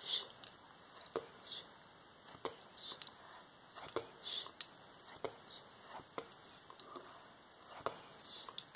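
Soft close-up whispering, broken by sharp clicks that come every second or so.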